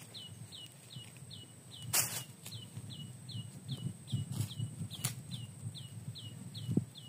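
A small animal repeats a short, high, falling chirp about two and a half times a second, over a steady thin high whine. A few brief sharp swishes cut in, the loudest about two seconds in and others around four and a half and five seconds in.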